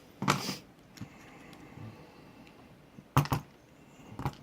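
Small metal tools and objects being handled and set down on a cluttered workbench: a brief rustle near the start, then a few sharp clicks and clacks about three seconds in and again near the end.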